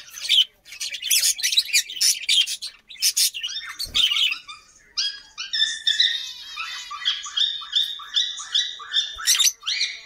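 Cockatiel calls: high chirps and harsh squawking notes for the first few seconds, then from about five seconds in a quick run of repeated whistled notes, a warbling cockatiel whistle.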